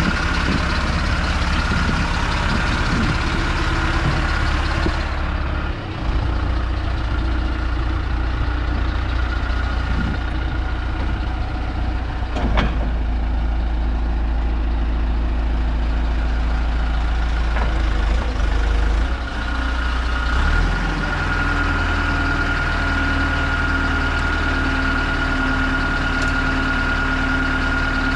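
1998 John Deere 410G loader backhoe's diesel engine running steadily. Its note changes about six seconds in and again about twenty seconds in, with a single sharp knock near the middle. A steady high whine comes in over the last third.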